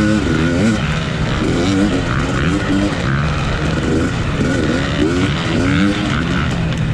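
A 250 cc off-road racing motorcycle engine under hard riding, its revs climbing and dropping again and again with the throttle.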